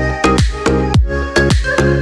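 Background electronic dance music with a steady kick drum, about two beats a second, under sustained synth notes.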